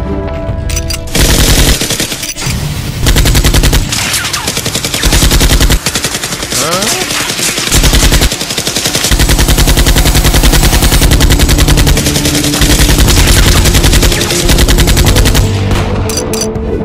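Machine-gun fire sound effect: several bursts of rapid automatic gunfire dubbed over the Nerf blaster shots, with background music underneath.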